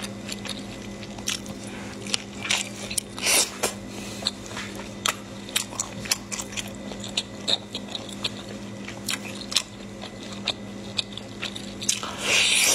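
Close-up mouth sounds of a person eating sauce-coated food: wet sucking, smacking and chewing clicks, with a louder slurp near the end. A steady low hum runs underneath.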